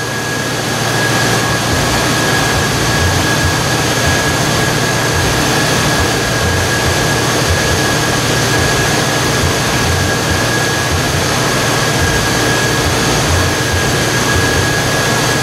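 Mercury Grand Marquis's 4.6-litre V8 running steadily at a fast idle with its factory and added second alternators charging, a steady high whine over the engine sound.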